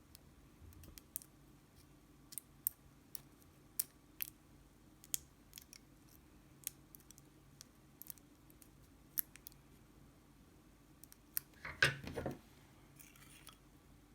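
Sharp metallic clicks and ticks, about one a second, as a shim and tools work the plug of a pin-tumbler lock being taken apart. Near the end comes a louder scraping rattle of metal parts lasting about a second.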